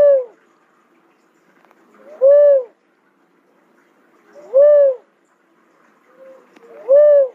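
A cuckoo-dove calling. It gives four hooting "whoop" notes, each rising then falling in pitch and lasting about half a second, repeated about every two and a half seconds. A faint softer note comes just before some of them.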